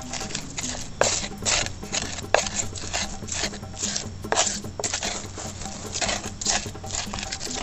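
Pestle crushing and grinding shallots, garlic and turmeric in a stone mortar: repeated scraping, crunching strokes, about two or three a second.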